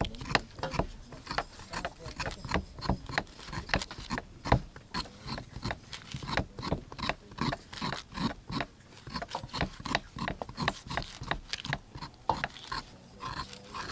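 Kitchen knife slicing the rind off a whole fresh pineapple: a quick, irregular run of crisp cutting and scraping strokes, several a second.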